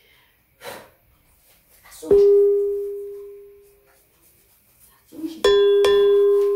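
A bell-like chime rings out once about two seconds in and fades away over about two seconds. Near the end it sounds twice more in quick succession and holds.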